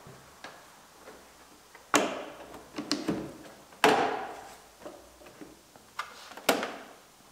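Plastic push pins and snap clips clicking and popping loose one at a time as the top closeout panel is pried off, about five sharp snaps with the loudest about four seconds in.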